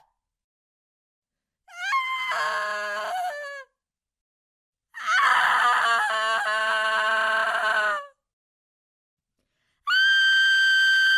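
A woman screaming in horror, three separate screams with dead silence between them: a short one about two seconds in, a longer, louder one about five seconds in, and a high shriek held at one steady pitch starting near the end.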